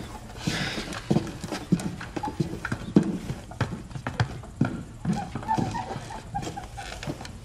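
Irregular clopping steps and knocks on hard ground, a few tenths of a second apart.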